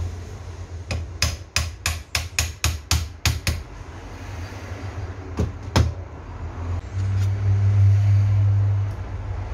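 Quick run of about ten sharp metallic taps, then two more, as a hand tool strikes at the top of a motorcycle rear shock absorber held in a bench vise. Near the end a low steady hum comes in for about two seconds.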